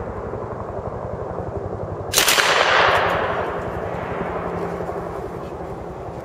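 A short burst of submachine-gun fire about two seconds in, lasting about a second and fading away in echo, over a continuous rumble of distant gunfire.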